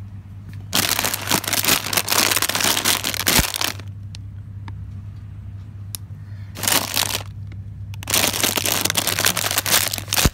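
Plastic snack packets crinkling as they are handled, in three bursts: a long one in the first few seconds, a short one around the middle and another near the end. A steady low hum runs underneath.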